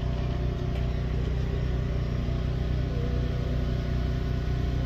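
A car running on the road, engine and road noise making a steady low drone that holds even throughout.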